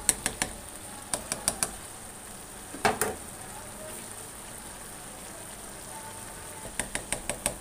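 Spatula stirring rice in a large metal pot, clicking and scraping against the pot in short runs of quick taps with one louder scrape about three seconds in, over a steady sizzling hiss as the last of the water cooks off on high flame.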